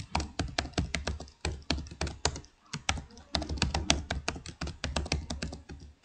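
Computer keyboard typing: quick, irregular keystrokes, several a second, over a faint low hum.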